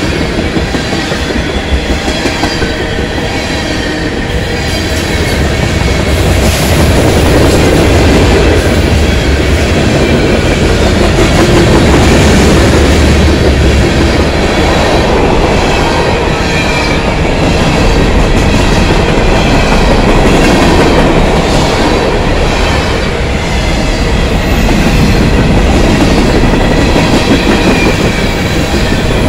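CSX freight train's tank cars and covered hopper cars rolling past, with a steady rumble and wheels clicking regularly over the rail joints.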